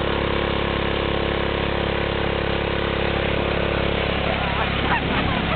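Briggs & Stratton 3 HP single-cylinder lawnmower engine running steadily at full throttle while driving a small homemade tractor. About four and a half seconds in, its steady note wavers and breaks up.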